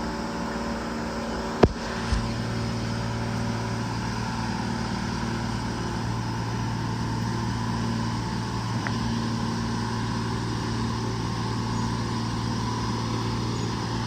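The 125B excavator's engine running steadily, with a sharp crack about a second and a half in and a smaller one just after, as the machine works against a tree's branches.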